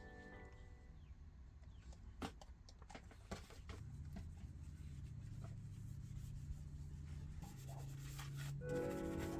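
Faint rubbing and scraping on a bass guitar's body as it is cleaned, with two sharp clicks in the first few seconds. Background music comes back in near the end.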